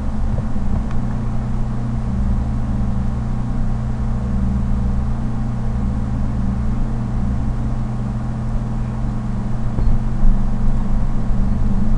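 Steady low hum with a faint hiss, unchanging throughout: the background noise of the recording, with no other sound on top of it.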